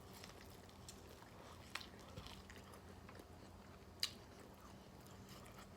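Faint chewing of food with a few sharp mouth clicks, the clearest about two seconds and four seconds in.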